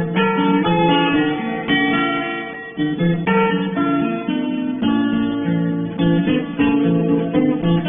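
Background music: acoustic guitar strummed and plucked, chords changing every second or so.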